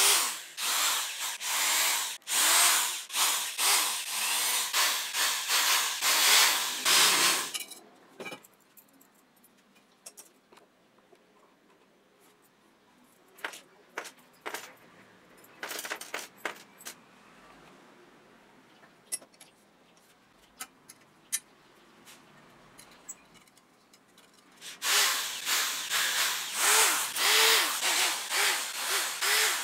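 Screwdriver turning rusted spoke nipples in a steel bicycle wheel rim: rapid grating and squeaking of metal on metal. It lasts about seven seconds at the start and comes back for the last five seconds, with scattered light clicks and rattles of loose spokes in between.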